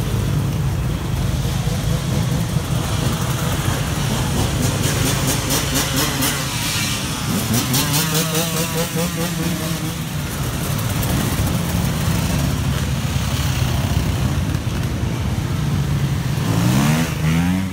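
A line of enduro dirt bikes riding slowly past, their engines running at low revs. The revs rise a couple of times, most sharply near the end.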